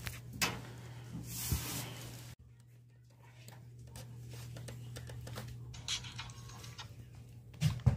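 Handling noises on a mini oven: a few knocks and a short rustle over a steady low hum. The sound drops suddenly at an edit about two and a half seconds in, and two louder knocks come near the end.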